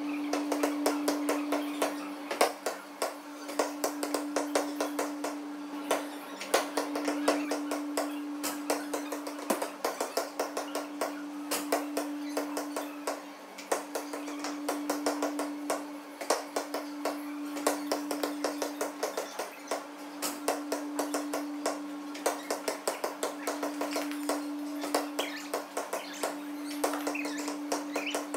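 Basketballs bouncing on a gymnasium court: many sharp, irregular knocks, several a second, over a steady hum that breaks off briefly every two seconds or so.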